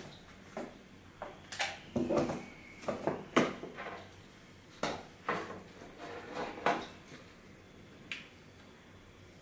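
A string of sharp plastic clicks and knocks, about eight, from the car stereo head unit and its plug-in wiring connectors being handled while the unit is hooked up to power.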